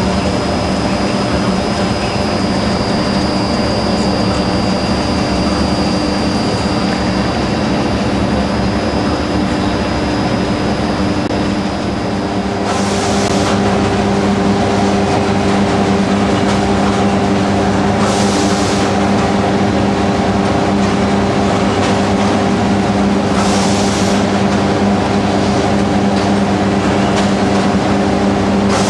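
Automated plant machinery running steadily, a loud hum made of several steady tones. About twelve seconds in it grows a little louder and a new tone joins. Short hissing bursts then come about every five and a half seconds.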